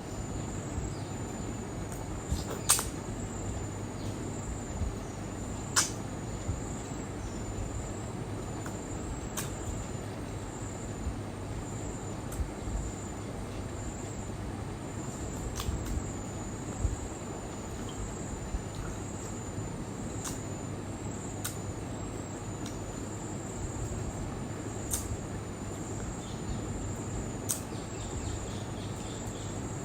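Steady background noise with a low hum, a continuous high-pitched insect trill like crickets, and several sharp clicks scattered through.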